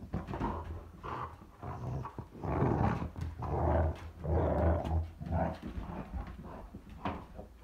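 Red-nose pit bull growling during rough play, in several drawn-out rough bursts between about two and a half and five seconds in, with short clicks scattered through.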